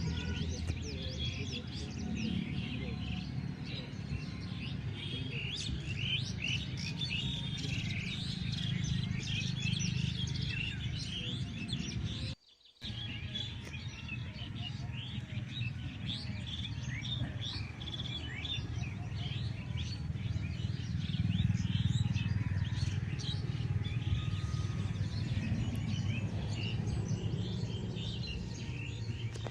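A dense chorus of many small birds chirping, with quick short calls overlapping continuously, over a steady low rumble. The sound cuts out abruptly for about half a second around twelve seconds in, then resumes.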